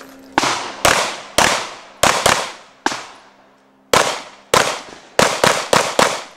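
Pistol shots: twelve in two quick strings of six, about half a second apart or less, with a pause of about a second between the strings. Each shot rings out briefly.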